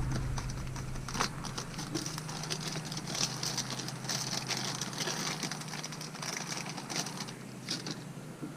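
Scattered light clicks and taps of small model-locomotive parts being handled and fitted, over a faint steady low hum.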